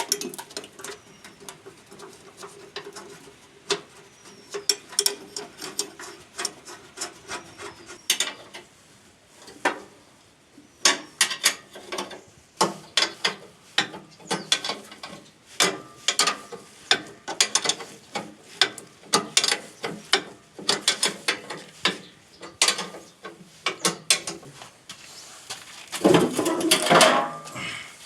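Hand tools working on a mini rice mill while it is taken apart to change a seized bearing: irregular metallic clicks, taps and knocks, with a loud harsh scraping rasp near the end.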